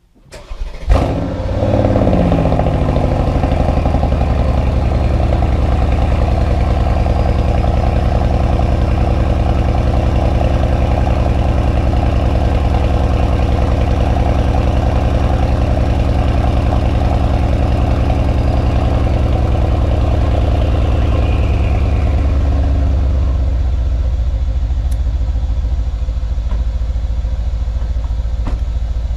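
Mercedes-AMG GLE 63 S Coupe's twin-turbo V8 starting from cold silence: the revs flare and fall away over a couple of seconds, then it idles steadily through the exhaust. About 22 seconds in the idle grows a little quieter and calmer.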